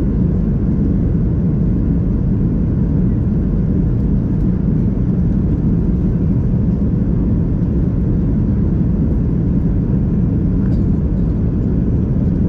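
Steady low rumble inside the cabin of a Boeing 737-800 in flight: its CFM56-7B jet engines and the airflow over the fuselage.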